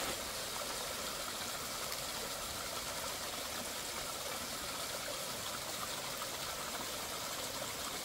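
Mountain stream water trickling steadily down a narrow cascade over mossy rocks into a shallow pool.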